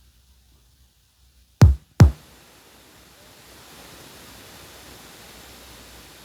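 Two loud, deep drum beats about half a second apart, from music played by a portable radio, followed by a faint steady hiss from the radio's earphone output.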